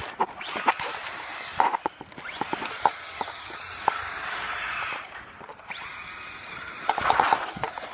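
Electric remote-control truck driving: a thin high motor whine in two long runs, over tyre noise on the ground, with scattered clicks and knocks.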